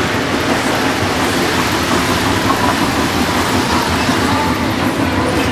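Three-rail O-gauge model train running past close by, its wheels and motor making a steady rumble on the track.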